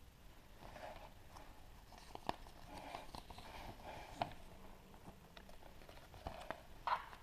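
Hands handling and opening a surprise egg, with scattered sharp clicks and taps and short bursts of rustling. The loudest clicks come about two, four and seven seconds in.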